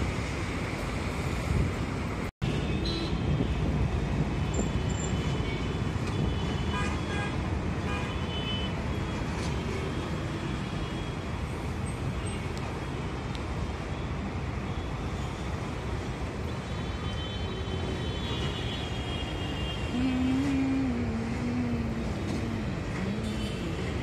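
Steady city road traffic, vehicles passing with horns tooting now and then. The sound cuts out for an instant about two seconds in.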